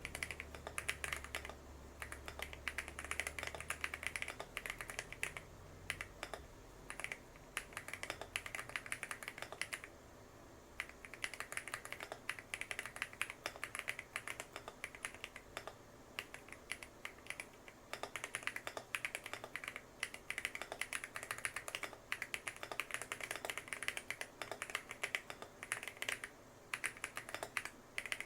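Custom 65% mechanical keyboard with PBT Cherry-profile keycaps and a tape mod being typed on: fast, continuous keystrokes, stopping briefly about ten seconds in.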